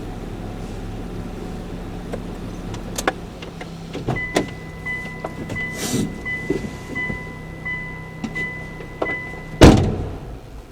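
A car's engine runs steadily and then cuts off about three seconds in. This is followed by clicks and knocks and a car's electronic warning chime beeping about twice a second. The chime stops with one loud car door slam near the end.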